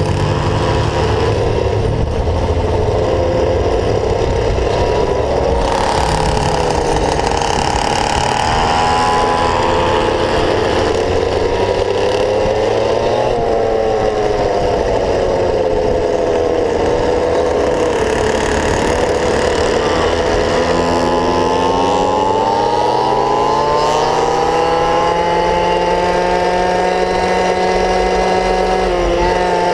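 Small gasoline engine of a stand-up Go-Ped-style scooter running under way, its pitch rising and falling with the throttle; it dips about two-thirds through, then climbs and holds high near the end.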